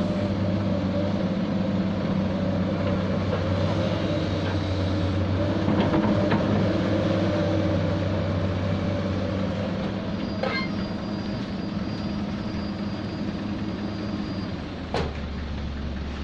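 Heavy diesel engine of earthmoving machinery running steadily, with a few metallic clanks. Near the end the engine note drops lower.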